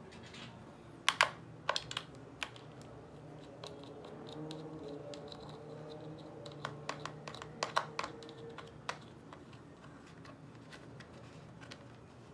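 Scattered clicks and taps of hands fitting and pressing the air filter housing onto a small gas scooter engine, in two clusters.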